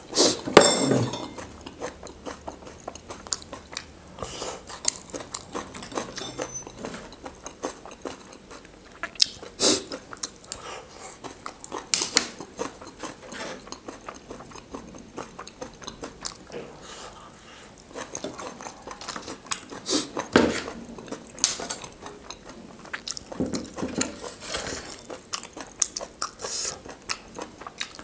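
A person eating close to the microphone: chewing and biting with crunchy bites, and a few sharp louder clicks spread through it.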